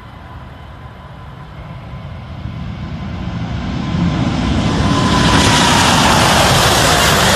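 Boeing 747's four turbofan engines at takeoff power, growing steadily louder as the jet comes closer, with a steady whine that dips slightly in pitch as it passes.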